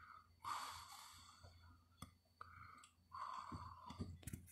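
A person's quiet breathing close to the microphone, three breathy exhales, with a few faint clicks.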